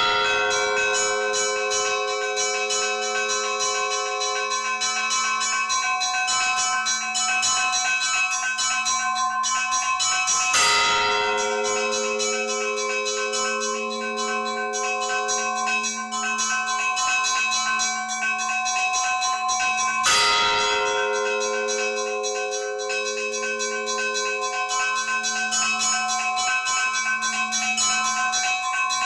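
Church bells ringing. A heavy strike comes about every ten seconds, and between strikes the tones of several bells hang on and overlap over a low pulsing hum.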